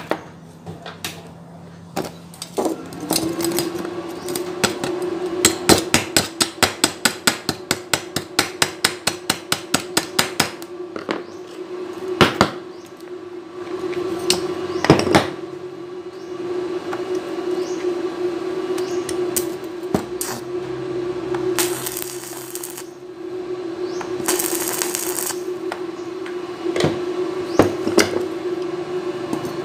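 Stick welding on thin square steel tube: a steady hum comes on about three seconds in and holds, a run of sharp metal taps about three a second for several seconds, then two short bursts of arc hiss later on. The short separate bursts are stitch welds used to patch a spot of unfinished weld without burning through the thin tube.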